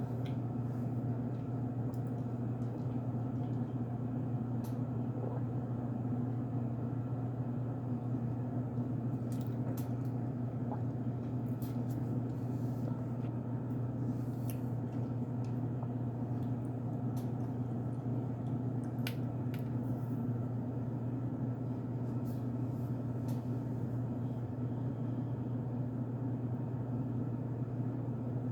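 A steady low hum is the loudest sound throughout. Over it come faint, scattered crunches and clicks of someone chewing a mouthful of unscented cornstarch.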